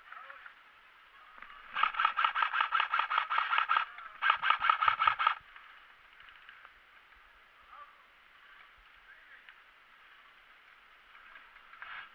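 AK-pattern airsoft rifle firing full-auto in two bursts, about two seconds then about one second, at roughly ten shots a second.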